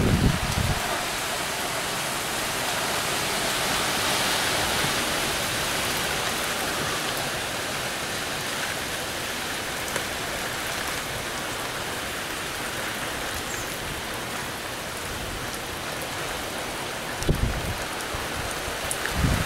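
Steady hiss of Hurricane Sandy's wind-driven rain and wind through the trees. Gusts buffet the microphone with low rumbling blasts at the start and twice near the end.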